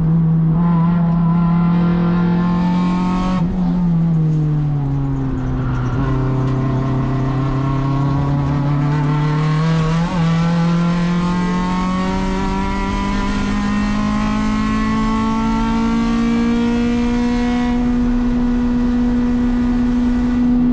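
Acura RSX-S race car's four-cylinder engine running hard, heard from inside the cabin. Its pitch dips about three and a half seconds in, then climbs slowly and levels off near the end, with the car held in a lower gear because fifth is not available.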